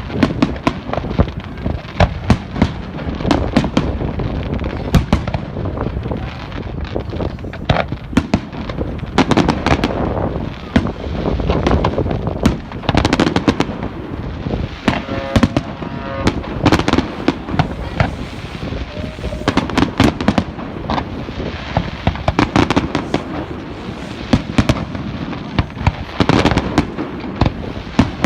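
Fireworks display: a rapid run of sharp bangs and booms with crackling between them. A short pitched tone sounds about halfway through.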